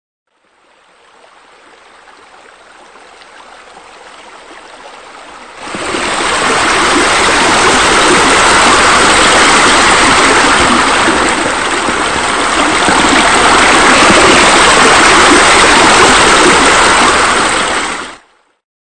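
Steady rushing of running water. It starts faint, becomes much louder about six seconds in, and cuts off abruptly near the end.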